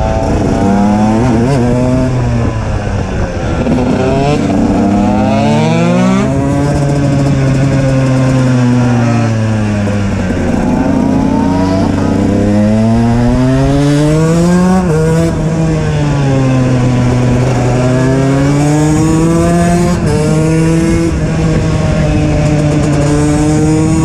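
KTM EXC 125 two-stroke engine with an HGS exhaust, ridden hard: the revs climb and fall again and again as the rider opens and closes the throttle through the bends, with a quick drop in pitch about fifteen seconds in, over steady wind rush.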